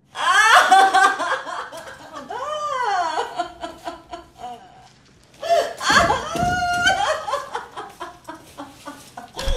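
A woman wailing and whimpering in exaggerated, comic crying: several long sliding wails with short pauses between.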